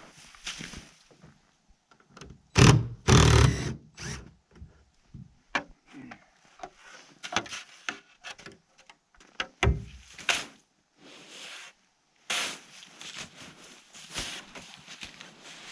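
Irregular knocks and thumps with scraping and rustling. The loudest is a pair of heavy thuds about three seconds in, with another near ten seconds.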